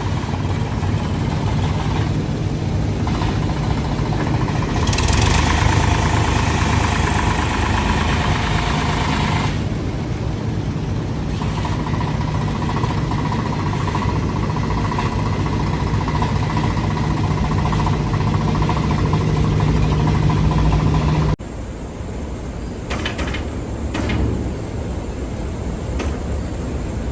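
Excavator's diesel engine running steadily, louder with a higher whine from about five to nine seconds in as it works. About three-quarters through the sound cuts abruptly to a quieter engine hum with a few knocks.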